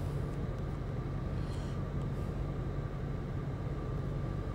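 A steady low mechanical hum with a faint high steady tone above it, even in level throughout.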